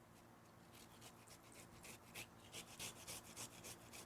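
Faint handling noise: a run of soft, irregular rubbing strokes, a few a second, starting just under a second in.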